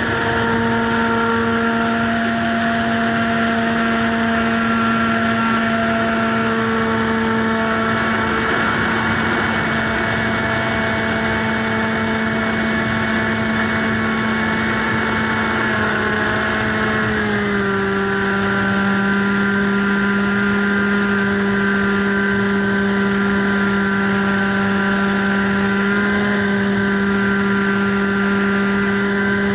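Radio-control model plane's motor and propeller running with a steady hum, its pitch stepping down a little a bit over halfway through as the throttle is eased.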